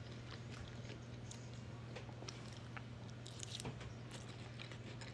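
Close-miked chewing and biting of Chinese takeout food: scattered small clicks and crunches, a brief cluster of them a little past halfway, over a steady low hum.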